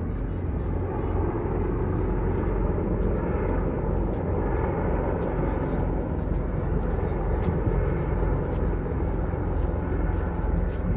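Formation of helicopters passing overhead: a steady drone of rotors and engines.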